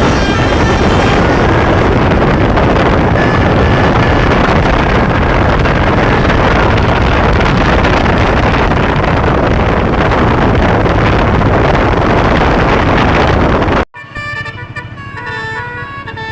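Loud steady rushing noise with faint horn tones in it, then an abrupt cut about fourteen seconds in. After the cut a bus's telolet multi-tone musical horn plays a clear tune of stepped notes.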